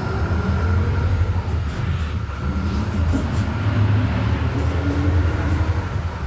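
Volkswagen Volksbus 17.230 OD bus under way at low engine speed: a steady low diesel drone with the whine of its gearbox above it, rising slightly in pitch through the middle.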